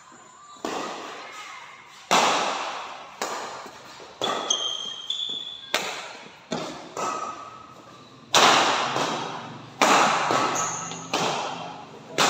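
Badminton rackets hitting a shuttlecock back and forth in a fast rally, about a dozen sharp strokes spaced half a second to a second and a half apart, each ringing on in the hall's echo.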